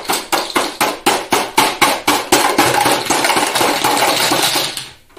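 Plastic building blocks rattling inside a clear plastic storage container as it is shaken, a quick run of clatters about four or five a second that stops shortly before the end.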